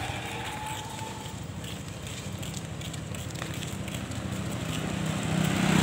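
Small motorcycle engine running, getting louder near the end as it approaches.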